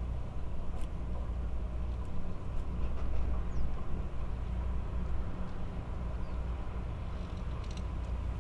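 A steady low rumble of outdoor background noise, with a few faint ticks and two or three faint, short, high chirps.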